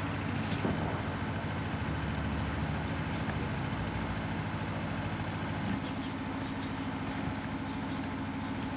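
A steady low hum of an idling engine.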